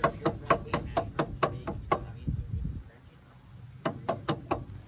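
Regular clicking from a wheel hub being turned by hand, about four to five clicks a second. It stops about two seconds in and starts again near the end.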